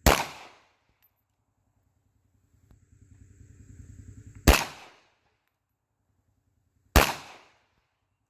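Three single .380 ACP pocket-pistol shots, each a sharp crack with a short echo tail. The first comes right at the start, the second about four and a half seconds later, and the third about two and a half seconds after that.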